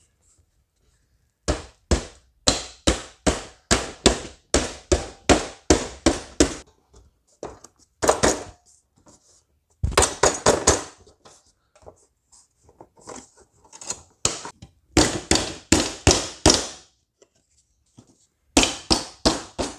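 Plastic truck bumper cap being pounded down onto a steel front bumper by hand: runs of hard thumps, about two or three a second, with short pauses between the runs. The cap is a tight fit being forced into place.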